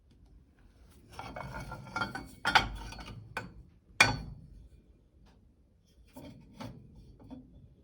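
Metal hand tools being handled: rattling and scraping for a couple of seconds, two sharp metallic knocks, then a few lighter clicks near the end.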